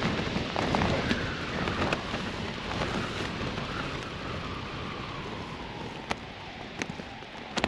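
Strong wind buffeting a tent, heard from inside, easing off gradually, with a faint falling whistle and a few sharp ticks near the end.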